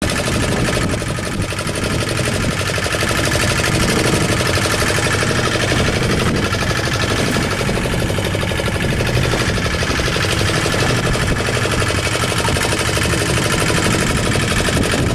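Small fishing boat's tiller-steered outboard motor running steadily under way, a loud, fast even beat of engine firing.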